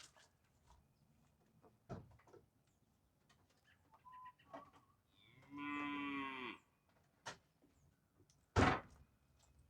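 An animal's single drawn-out lowing call, about a second and a half long, sliding down in pitch at the end. Around it are faint clicks and, near the end, a sharp knock from parts and tools being handled.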